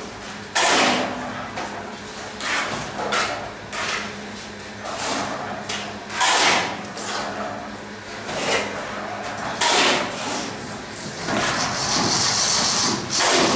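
Plastering tools scraping wet cement mortar as a wall is rendered by hand: repeated scraping strokes at uneven intervals, one every second or two, with a longer stretch of continuous scraping near the end.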